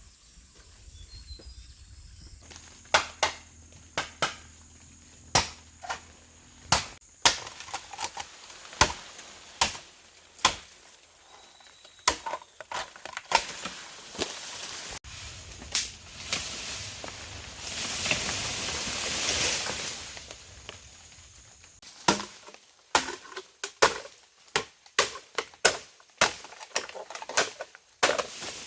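Repeated sharp tool strikes on bamboo, irregular at about one a second, with a few seconds of steady rasping noise in the middle, then quicker strikes near the end.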